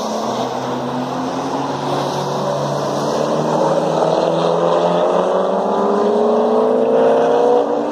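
Sports cars' engines running at speed on a race track, one engine note rising steadily as it accelerates for several seconds, then breaking off near the end.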